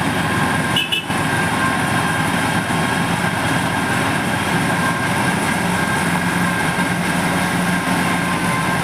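Heavy diesel road-paving machinery, a tipper truck and asphalt paver finisher, running steadily with a low engine hum and a steady high whine over it. The sound dips briefly about a second in.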